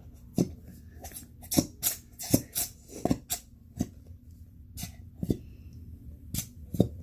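A metal utensil clinking and scraping against a glass bowl while slime is scraped off the sides: irregular sharp clinks, thickest in the first half.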